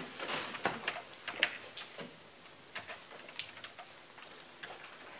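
Typing on a computer keyboard: soft, irregular key clicks, several in the first two seconds, then fewer and fainter.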